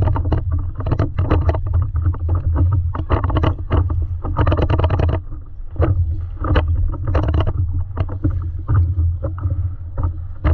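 Water slapping and splashing irregularly against a stand-up paddleboard and around the paddle as it strokes, picked up close by a camera on the board, over a steady low wind rumble on the microphone.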